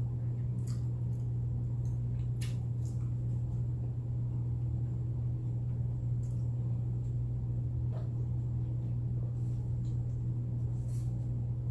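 Close-miked chewing of crunchy nacho chips: a few scattered crunches and mouth clicks over a steady low hum.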